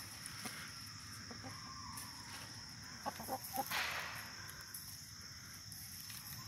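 Hens clucking faintly as they peck at feed, with a few short clucks about three seconds in and a brief rustling burst just after them.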